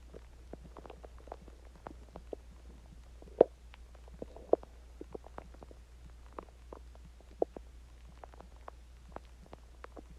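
Human stomach and bowels gurgling while digesting a meal and water: a run of short, irregular pops and bubbly gurgles, with two louder pops about three and a half and four and a half seconds in.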